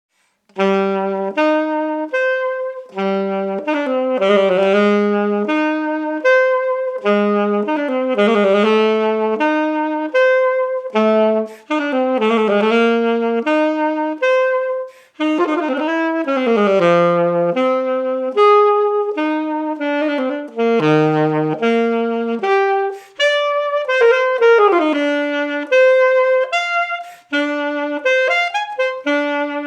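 Yamaha student alto saxophone played solo and unaccompanied: a flowing melodic passage of short and held notes, with slides between pitches and brief breaks for breath between phrases.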